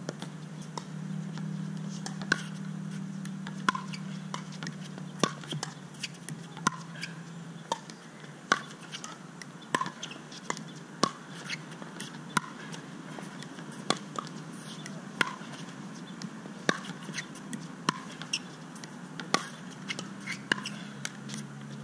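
Pickleball baseline rally: sharp, hollow pops of paddles striking the plastic ball, with lighter ticks of the ball bouncing on the hard court, a hit about every second and a half. A low steady hum sounds under the first several seconds and again near the end.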